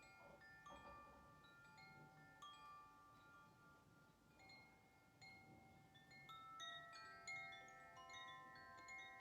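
Chimes ringing softly during a sound meditation: many different notes struck one after another, each ringing on and overlapping the next, more often in the second half.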